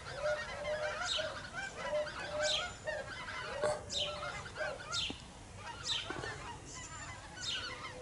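A large flock of wild geese calling in flight overhead: many overlapping honks, with lower repeated notes and high, falling calls in a continuous chorus.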